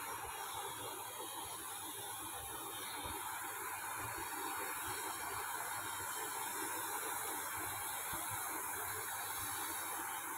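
Steady hiss, even and unbroken, with no other distinct sound standing out.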